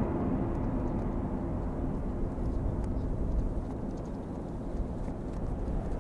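Low, steady rumbling noise with faint scattered crackles over it.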